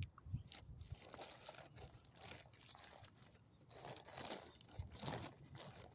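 A small dog chewing bits of chicken close to the microphone, in a few short spells of chewing about two, four and five seconds in.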